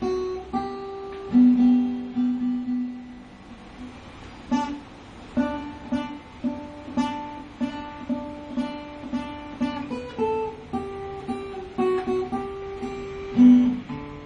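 Acoustic guitar played alone: a few single picked notes left to ring, then a steady figure of plucked notes about two a second from about five seconds in.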